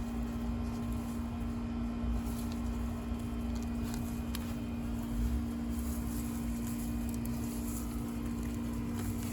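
A steady, low mechanical hum from a running motor, with a few faint scrapes and a knock from digging in hard soil.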